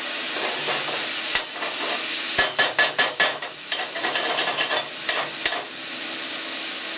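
A hand tool is scraped briskly back and forth across freshly plasma-cut steel plate, a quick run of strokes about two and a half seconds in, then a few lighter ones. Under it runs a steady hiss of air.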